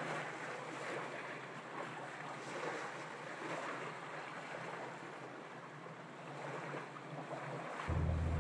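Small lake waves washing onto a sandy beach, a steady wash that swells and eases. Near the end a low rumble of wind on the microphone comes in.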